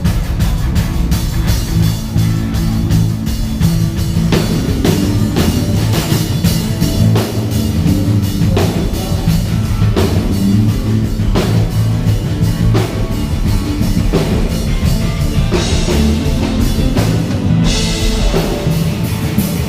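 Rock band playing a song: a drum kit keeps a steady beat under sustained bass and guitar.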